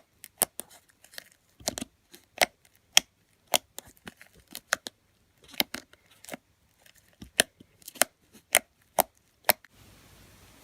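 Homemade slime being squeezed and poked by hand, letting out a string of sharp popping clicks, about two a second, that stop near the end and leave a faint hiss.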